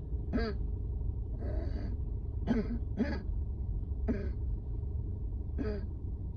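A person coughing in a fit from a severe asthma flare-up: about five short, harsh coughs at uneven gaps, with one wheezy, gasping breath drawn between the first and second. A steady low rumble runs underneath.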